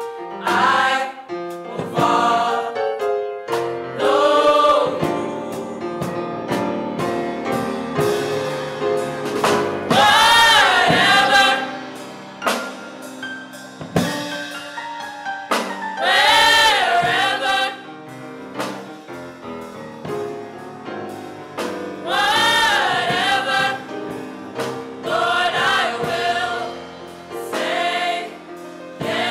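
Gospel choir singing together, with loud held notes that waver in pitch swelling up about every six seconds.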